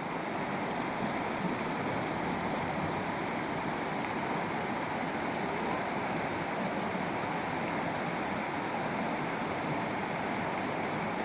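Ganga river water rushing steadily over rocks, a constant even wash of moving water.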